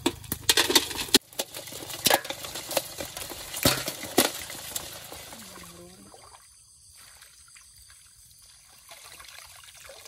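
Water splashing, with a run of sharp splashes and knocks in the first few seconds. Then softer sloshing and trickling as a fine-mesh net is dragged through shallow water.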